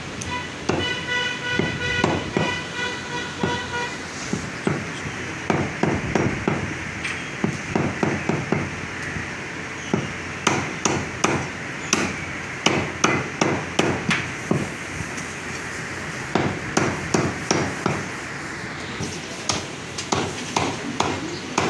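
Heavy steel meat cleaver chopping mutton on a round wooden butcher's block: repeated sharp chops, mostly in quick runs of several strokes with short pauses between.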